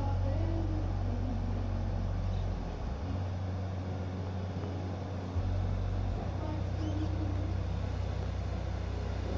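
Steady rush of rain-swollen river water pouring over a spillway and through rocky rapids, with low wind rumble on the microphone that drops away about three seconds in and returns after five.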